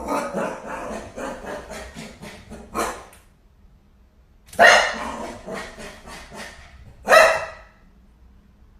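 A dog barking: two loud, sudden barks about two and a half seconds apart, after a busier stretch of rapid sounds in the first three seconds.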